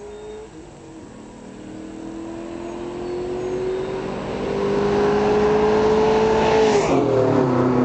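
Ford Mustang GT V8, fitted with headers, a catted H-pipe and Flowmaster mufflers, approaching at full throttle, its exhaust note rising steadily in pitch and getting louder. It passes at about 100 mph near seven seconds in, where the pitch drops sharply and the note carries on lower as it moves away.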